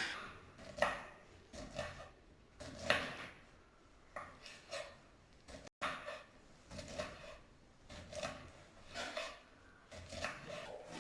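Kitchen knife cutting ivy gourds (tindora) into long pieces: irregular chopping strokes, roughly one a second, with a brief break about halfway through.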